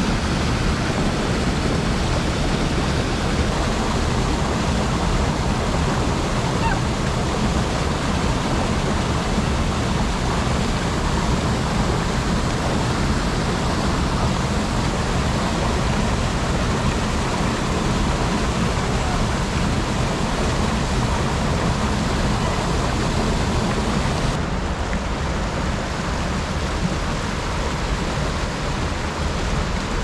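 Small woodland waterfall and stream rushing steadily over rocks into a pool. Near the end the sound turns slightly duller.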